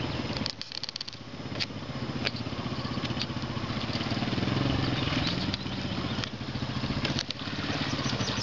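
Engine of a Leshy two-wheel-drive off-road motorcycle pulling through a muddy rut. It drops off briefly about half a second in, then runs on under throttle and builds toward the end, with a few sharp clicks.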